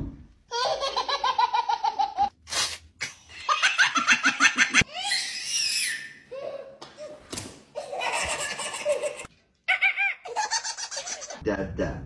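Babies laughing hard in several bursts of rapid, pulsing giggles, separated by short gaps. A high-pitched squeal comes about five seconds in.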